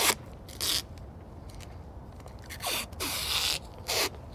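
Adhesive tape being pulled off the roll and wrapped around a rifle: several short ripping rasps, the longest about three seconds in.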